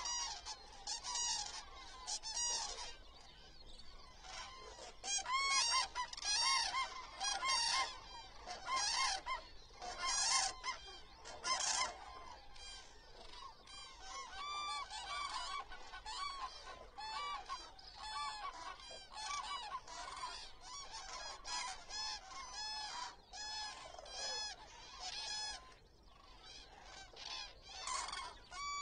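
A large flock of common cranes calling, many trumpeting calls overlapping without pause, with a brief lull near the end.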